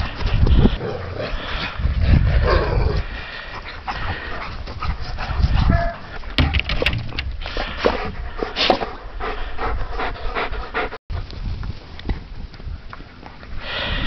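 Alaskan Malamutes panting and moving about while playing with a ball, with scattered knocks, and a brief dropout about eleven seconds in.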